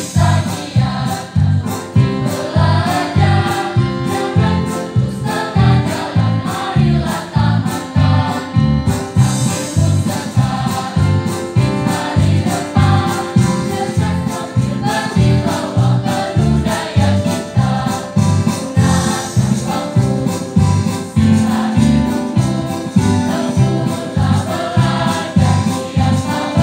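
Mixed high-school choir singing together into microphones over an accompaniment with a steady beat, about two strokes a second.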